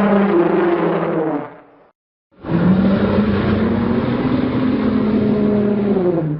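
A motor vehicle engine running at a steady pitch, heard as two separate sound effects. The first lasts about two seconds. After a short gap, the second lasts about four seconds, and its pitch drops a little near the end.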